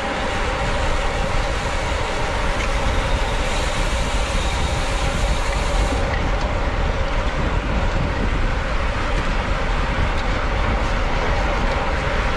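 Steady wind rush on the microphone of a camera riding on a road bicycle in a race, with the bike's tyre and road rumble and a steady hum beneath.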